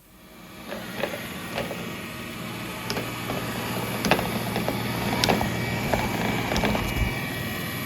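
3i G10+ robot vacuum running: a steady motor whir with a low hum, fading in over the first second or so, with scattered sharp clicks and ticks.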